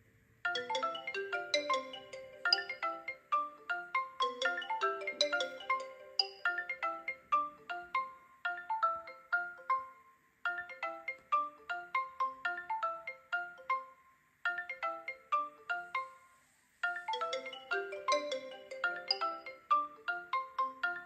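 Smartphone incoming-call ringtones playing, with more than one phone ringing at once: a melody of short, quickly fading notes. The tune stops briefly about ten, fourteen and seventeen seconds in.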